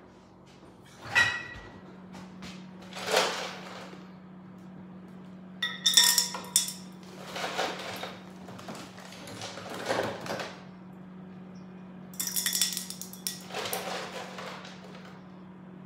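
Ice cubes clattering and clinking into a glass bowl in several irregular bursts, each with a short glassy ring.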